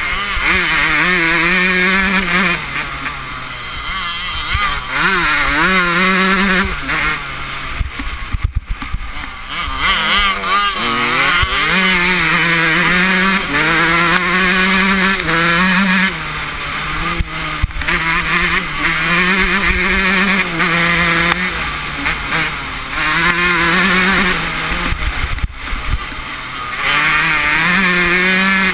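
Kawasaki 125 cc two-stroke motocross bike's engine heard on board under race riding, its pitch climbing hard through each gear and dropping back again and again as the throttle is worked and gears are changed.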